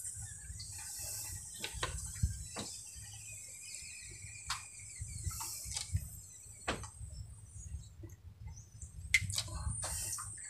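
Handling noise as a freshly caught coral grouper is pressed to push air out through venting needles: scattered soft clicks and knocks over a low rumble. A faint high hiss fades out a few seconds in.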